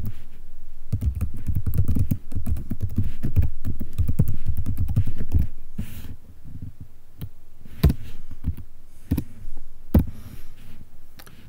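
Typing on a computer keyboard: a fast run of keystrokes for about five seconds, then a few scattered single key presses.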